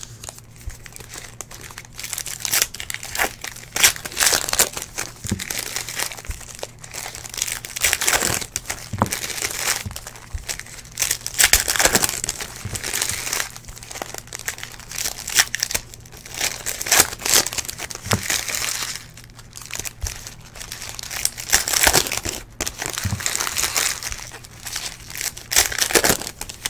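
Foil wrappers of Panini Unparalleled football card packs crinkling in irregular bursts as packs are handled and ripped open, with a steady low hum underneath.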